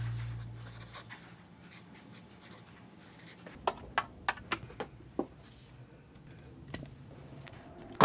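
Marker pen scratching on notebook paper, quiet, as music fades out in the first second. From the middle, a handful of sharp clicks and knocks of tins knocking together in a plastic storage crate.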